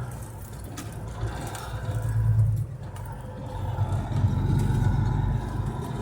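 Case IH 8120 combine running as it travels, heard from inside the cab: a steady low engine hum that swells and eases.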